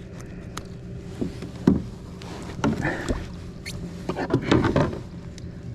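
Irregular knocks, rattles and rustles in a fishing kayak as a just-landed bass is handled aboard, over a steady low hum.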